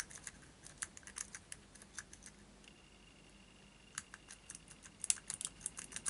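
Quiet, quick metallic clicking of a city rake rocked in and out of a five-pin brass padlock held under a tension tool, the pick ticking over the pin stacks. The clicking stops for about a second and a half midway, then resumes.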